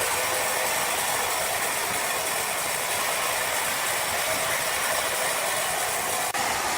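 Sawmill saw cutting through a log: a steady, harsh mechanical noise with a momentary break about six seconds in.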